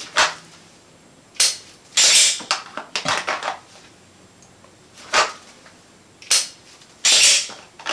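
Sharp clicks and short rattles of dry-fire draw practice: a pistol drawn from and pushed back into a belt holster, the trigger clicking on an empty gun, and the slide racked to recock it.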